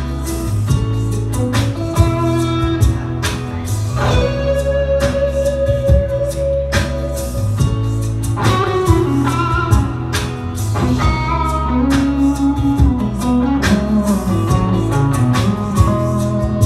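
Telecaster-style electric guitar played through an amp and effects pedals, a lead line with bent notes over a steady low bass and a regular beat.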